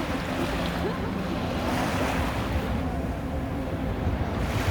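Sea waves breaking and washing on a beach, swelling and easing in surges, with some wind on the microphone.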